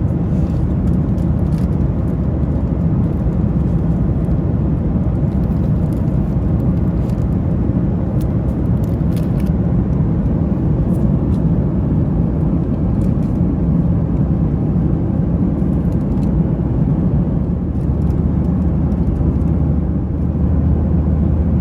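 Steady cabin roar inside a Boeing 737-900ER airliner in flight: engine and airflow noise with a constant low hum under it and a few faint clicks.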